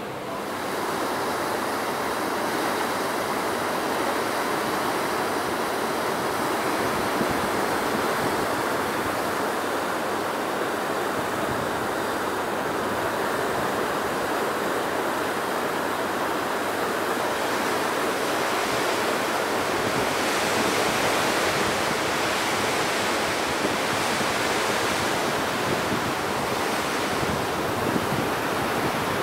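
Steady rushing noise of wind and passing water aboard a moving river cruise ship. It swells about half a second in.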